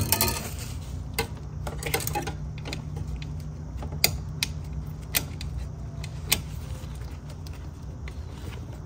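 Scattered small metallic clicks and taps of brake hard-line fittings being worked loose by gloved hands at a brake master cylinder, over a steady low hum.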